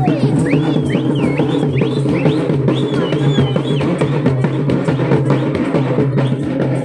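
Loud, fast drumming with a high, wavering melody over it for the first three seconds or so.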